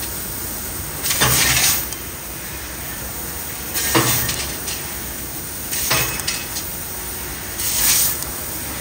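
CNC laser cutting machine cutting a patterned steel door sheet: a steady machine noise with short hissing bursts about every two seconds as the cutting head works through the cut-outs.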